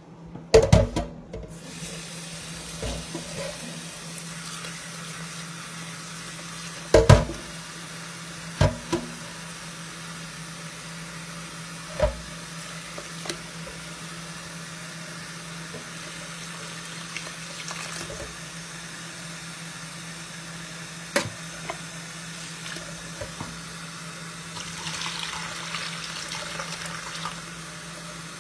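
Tap water running steadily into a steel pot as hands swish and rinse the contents, with a few sharp clanks of the pot now and then.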